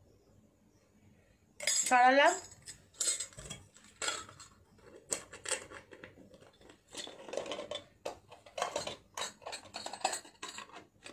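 Gold-plated metal bangles clinking and jangling against one another as they are handled and put down, in a run of light, irregular clinks. About two seconds in there is a brief, loud pitched sound.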